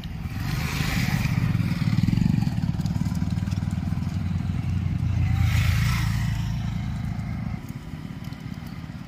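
Motorcycles passing by on the road, their engines swelling twice, about two and about five and a half seconds in, then fading away near the end.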